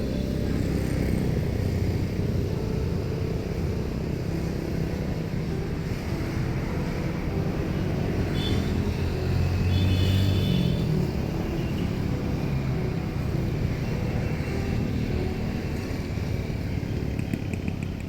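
Engines running with a steady low rumble that swells to its loudest about ten seconds in, with a brief higher whine around the same time.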